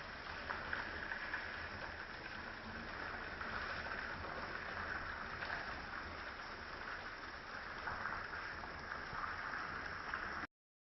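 Small rainforest stream babbling and rippling over rocks, a steady rush of water with little irregular splashes. The sound cuts to silence for a moment near the end.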